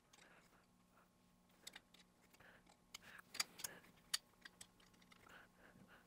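Faint, scattered clicks and light taps of a small aluminum linkage rod and parts being handled, with a few sharper ticks about halfway through.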